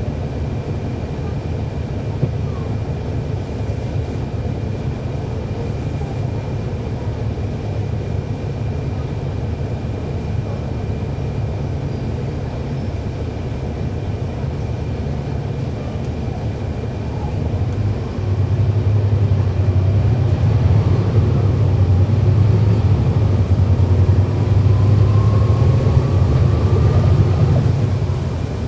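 Cummins ISL9 diesel engine of a NABI 40-SFW transit bus, heard from on board, running with a steady low drone. It grows louder about two-thirds of the way through as it pulls harder, with a faint rising whine near the end.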